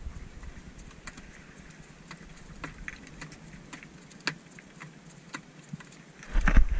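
Scattered light clicks and ticks at an irregular pace, with a loud low rumble setting in near the end.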